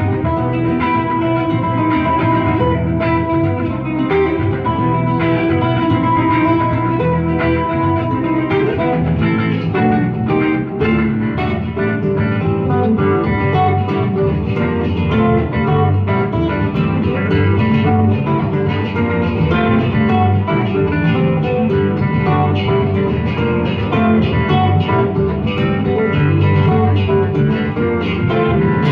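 Live instrumental guitar trio playing: an amplified nylon-string classical guitar and an electric guitar together with a third guitar. The lead holds long notes for the first several seconds, then moves into busier picking.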